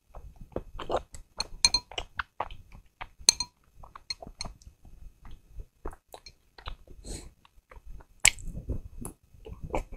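Close-miked eating sounds: chopsticks clicking and scraping against a glass sauce bowl, with wet chewing between them. A loud bite into a soup dumpling comes a little after eight seconds in.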